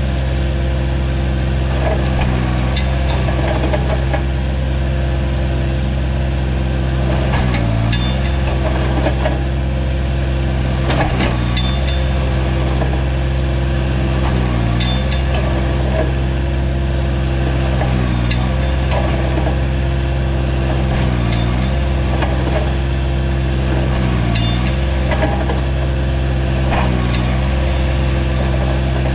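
Vermeer CTX160 mini track loader's engine running steadily. Its pitch sags briefly every few seconds as the hydraulics take the load of the stump bucket prying and pushing at a tree stump. There are occasional sharp metallic clinks.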